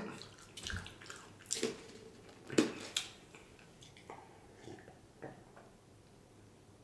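Faint swallowing gulps and wet mouth sounds as a drink is taken from a plastic cup, a string of short separate gulps that stop near the end.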